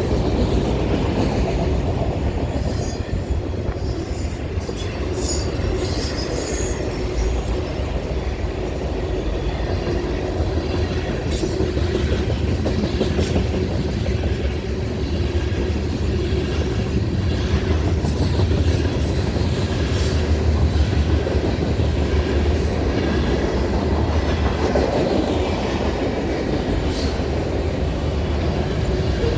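Norfolk Southern train cars rolling past at about 50 mph: a steady heavy rumble of steel wheels on rail, with scattered sharp clacks and brief squeals from the wheels.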